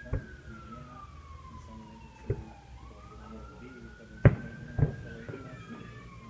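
Fireworks going off, four bangs with the loudest a little past halfway, over an emergency-vehicle siren wailing slowly up and down.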